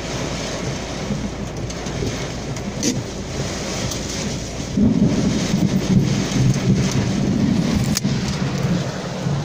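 Heavy rain pelting a car, heard from inside the car, with a low thunder rumble swelling from about five seconds in.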